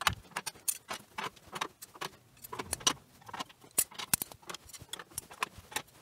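Steel shelf-bracket hooks being slotted into slotted steel wall-rail uprights. Each hook drops into its slots with an irregular run of sharp metallic clicks and clinks.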